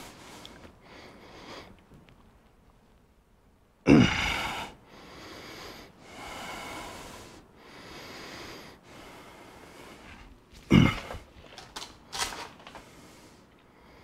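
A man breathing heavily close to a lapel microphone, in slow, even breaths, as he strains at a tyre-plug insertion tool stuck in the tyre. Two sudden, loud huffs of effort come about 4 seconds in and again about 11 seconds in.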